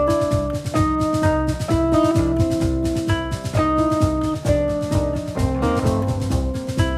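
Background music: a band piece with drum kit keeping a steady beat under held melodic notes.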